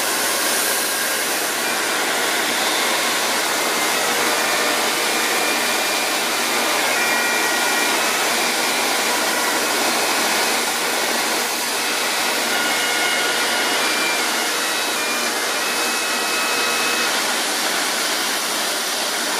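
Steam locomotive Flying Scotsman blowing off steam: a loud, steady hiss that holds without a break, with a few faint brief high tones coming and going in the middle.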